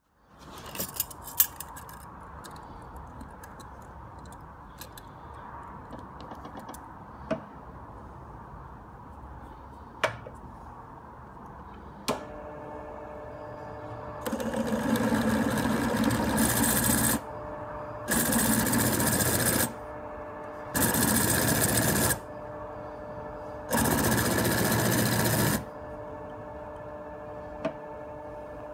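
Drill press running steadily, with a few sharp clicks and knocks in the first half. Then, about halfway through, a metalwork twist bit is fed into a steel hinge's screw hole four times, each a loud grinding cut of one to three seconds, countersinking the hole so the screw heads sit flush.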